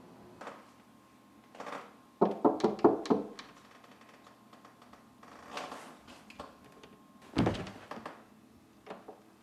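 A quick run of about six sharp knocks on a wooden door, then a single heavier thump about five seconds later, with a few lighter taps between.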